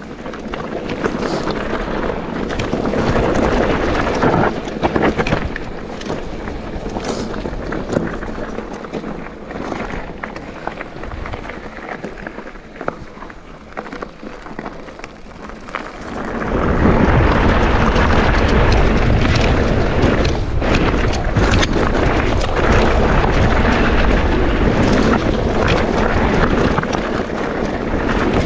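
Mountain bike riding down a dirt trail: tyres rolling over loose ground, with the bike rattling and clicking over bumps and wind buffeting the microphone. About sixteen seconds in it gets louder, with a heavy low rumble.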